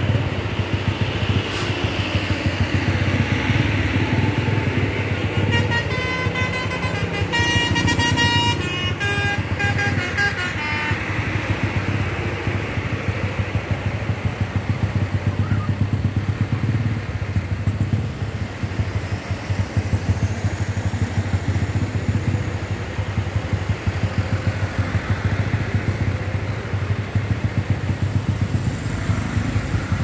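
A tour bus's musical "telolet" horn plays a short stepping melody of several notes, starting about six seconds in and lasting about five seconds, over the steady hum of idling and slow-moving engines.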